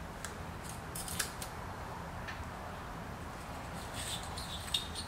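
Faint clicks and small handling noises from a spool of braided fishing line being turned and its line end worked by hand.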